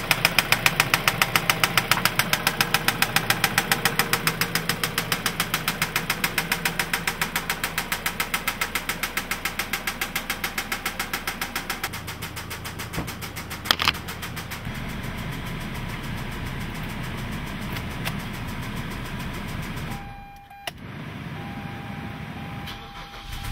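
2003 Mazda 6's 2.3-litre four-cylinder engine running with a rapid, regular knock, about four or five a second, that fades out about twelve seconds in, leaving steadier engine noise. A single sharp knock comes near fourteen seconds in, and a steady high tone near the end.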